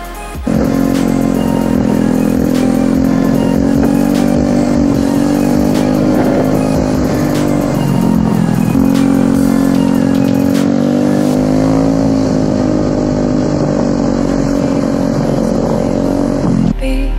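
Honda Vario 110 scooter's carburetted single-cylinder engine breathing through a NOB1 Neo SS aftermarket exhaust. It goes from idle to a higher engine speed half a second in and is held there steadily. The pitch dips briefly about halfway through and the revs drop off near the end.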